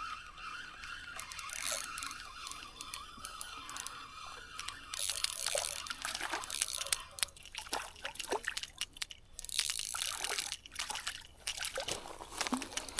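Water splashing and dripping as a small hooked kokanee salmon is brought in at the surface, with many short clicks and splashes in the second half.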